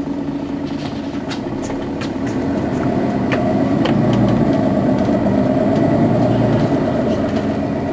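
Mercedes-Benz Citaro facelift city bus's rear-mounted engine idling steadily at a stop, growing louder about three seconds in, with a few faint clicks.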